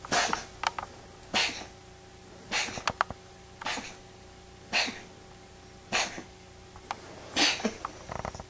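A cat sneezing over and over, about seven sharp bursts a little over a second apart.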